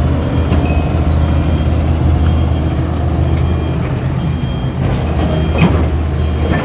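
Heavy diesel machinery running steadily under load with a deep, low engine hum, and a couple of short knocks near the end.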